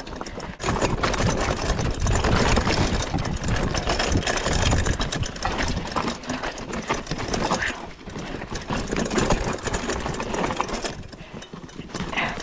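Mountain bike riding down a rough forest dirt trail: the bike rattles and clatters over roots and bumps, with tyre noise and a steady rumble, easing off a little near the end.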